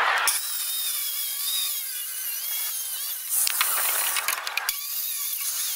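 Corded circular saw cutting through plywood, its motor whining steadily with the pitch wavering under load. A little past halfway the cutting gives way to a cluster of knocks and clatter as the saw is handled and set down on the board.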